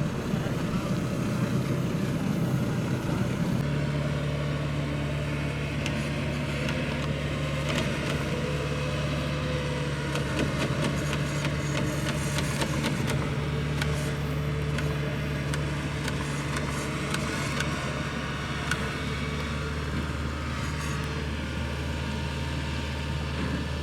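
Heavy farm machinery's diesel engine running steadily; its drone shifts to a new, steady note about three and a half seconds in, with scattered light clicks and knocks in the middle.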